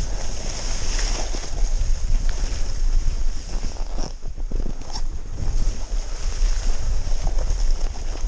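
Snowboard sliding and scraping over snow, with wind buffeting the camera microphone as a steady low rumble. The noise eases briefly about four seconds in.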